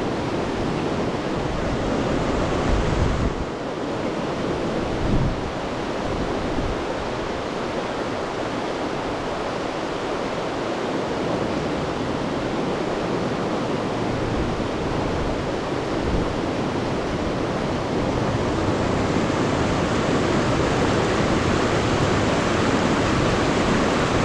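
Steady rush of river current, with a few low wind buffets on the microphone about three and five seconds in.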